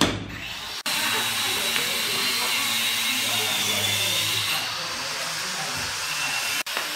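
A power tool running steadily with a high, slightly wavering whine. It starts abruptly about a second in and cuts off abruptly just before the end.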